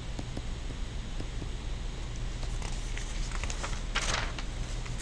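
Stylus tapping and scratching on a tablet screen while writing, a few small clicks and one short scratchy stroke about four seconds in, over a steady low electrical hum.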